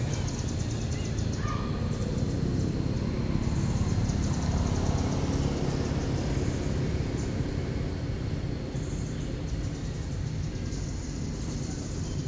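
Outdoor background noise: a steady low rumble under a high, rapidly pulsing buzz that stops and starts a few times.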